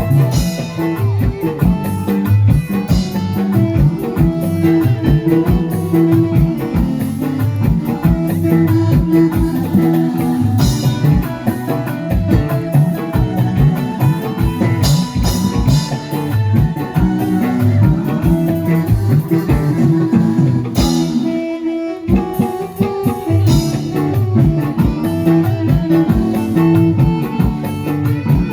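Loud music led by guitar over bass and a drum kit, with a steady beat; the low end drops out briefly about three-quarters of the way through.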